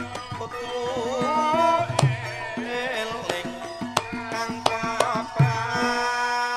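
Javanese gamelan music: hand drums keep a beat under a gliding, wavering sung melody, with a few sharp strikes along the way. A long held note closes the phrase near the end.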